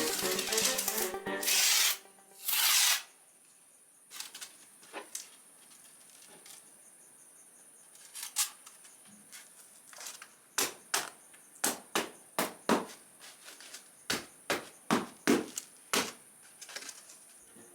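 Background music fading out, with two short hissing bursts, then a run of sharp taps or knocks, about two a second, in the second half.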